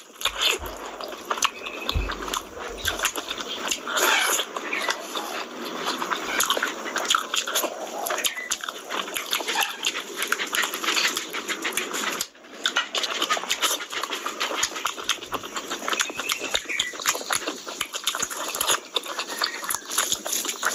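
Close-miked chewing of mouthfuls of rice and curry eaten by hand, a dense run of wet mouth clicks and lip smacks, with a brief pause about two-thirds of the way through.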